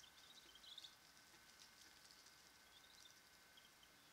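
Faint, quick high peeping of black-bellied whistling duck ducklings, in short strings in the first second and again more faintly about three seconds in, over a thin steady high tone.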